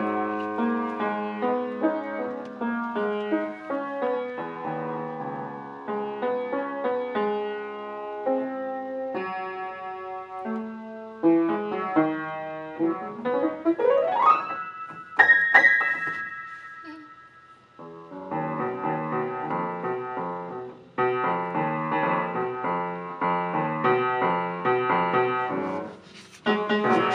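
Piano-style keyboard being played: a run of notes over a lower accompaniment, a quick upward glissando about halfway, then a pause and a series of repeated chords near the end.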